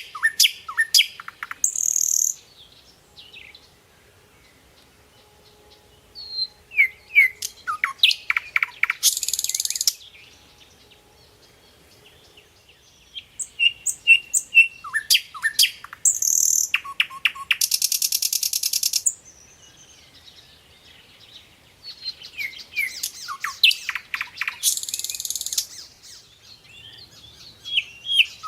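Small birds chirping in bouts that come back every seven or eight seconds: quick sharp falling chirps, each bout with a harsh, buzzy high rattle lasting about a second, and quieter gaps in between.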